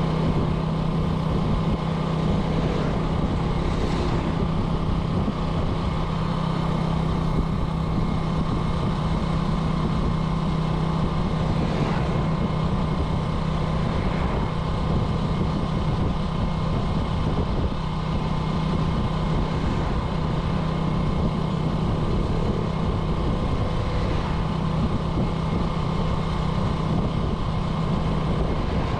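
Small motorcycle engine running at a steady pitch while the bike is ridden, with an even rush of road and wind noise.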